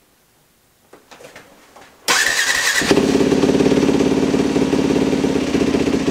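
Yamaha WR450F single-cylinder four-stroke dirt bike engine being started: a few faint handling clicks, then about two seconds in a short burst of cranking. It catches and settles into a steady idle, with the carburettor's fuel screw turned in so that it is running lean.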